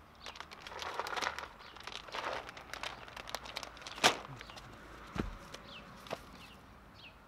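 Plastic bag of mushroom spawn crinkling and rustling as it is handled. About four seconds in comes a sharp knock, then a dull thump a second later as a heavy wooden log section is moved.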